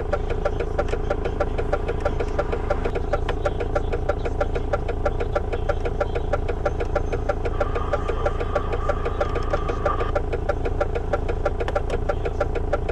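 Truck diesel engine idling steadily with a fast, even ticking running through it. A faint steady tone sounds for about two seconds a little past the middle.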